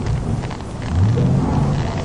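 A man's low, drawn-out vocal cry about a second in, over steady background noise.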